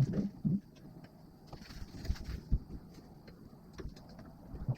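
Scattered light clicks and a few dull knocks, with two short low voice-like sounds in the first half-second.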